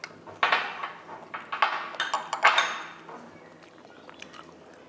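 A metal spoon clinking and scraping against a dish as a spoonful is taken, four or five times in the first three seconds, then only faint handling sounds.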